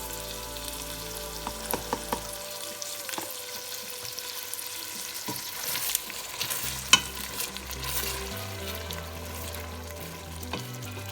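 Bacon and onions sizzling in a frying pan while being stirred, a spoon knocking and scraping against the pan now and then, sharpest about seven seconds in. Soft background music holds steady low notes underneath.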